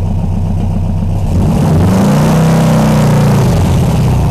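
A homemade open two-seater car's engine idling, then revved once about a second in: the pitch climbs, holds briefly, and drops back to idle near the end.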